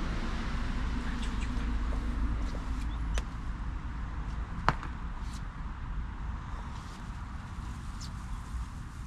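Steady low background rumble with a hiss that fades after about three seconds, broken by a few sharp clicks, the loudest about four and a half seconds in.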